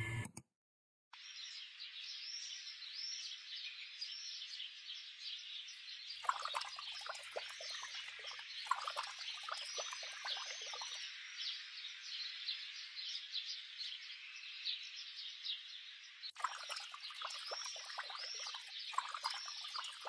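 A dense outdoor chorus of small animals chirping: many quick repeated chirps over a steady hiss. It grows louder and busier about six to eleven seconds in and again from about sixteen seconds.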